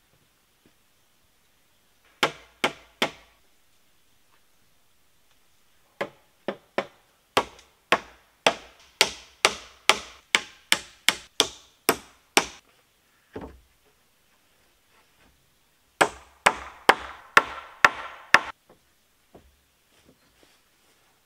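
Hammer nailing into wooden framing: three blows, then a long steady run of strikes about two or three a second, then after a pause another quick run of blows.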